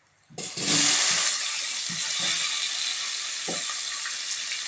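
A hot frying pan bursting into a loud sizzle about half a second in as wet food or water hits it, then settling into steady frying, with a few soft knocks.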